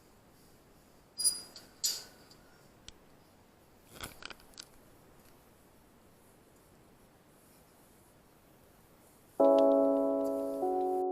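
Faint room hiss with two sharp clicks about a second in and a few lighter clicks around four seconds, then piano music begins near the end with struck chords that ring and fade.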